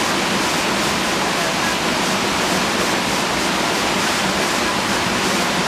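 Steady rush of flowing water, an even hiss and roar with no breaks.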